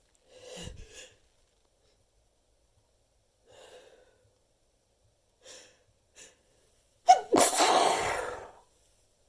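A person's short, gasping in-breaths at intervals build up, then a sneeze about seven seconds in, much louder than the breaths and lasting about a second and a half.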